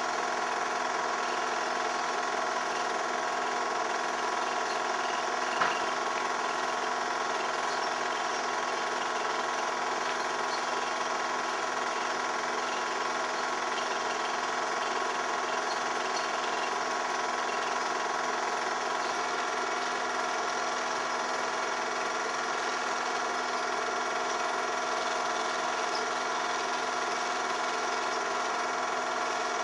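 Home-movie film projector running with a steady mechanical whir made up of many constant tones, and a single short click about five and a half seconds in.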